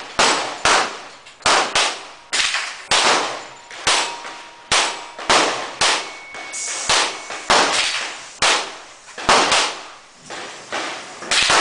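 Pistol shots fired in quick succession from a semi-automatic target pistol with a red-dot sight, roughly one to two shots a second, each a sharp crack followed by a short ringing echo.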